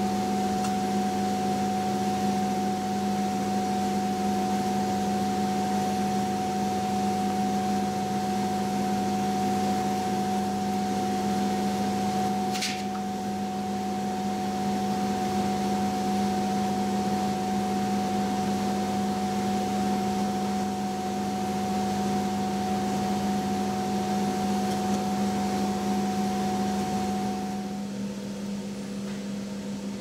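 Electric blower motor of a diesel foundry burner's service cart running with a steady hum on several fixed pitches. The hum cuts out a couple of seconds before the end, and a brief high chirp sounds about halfway through.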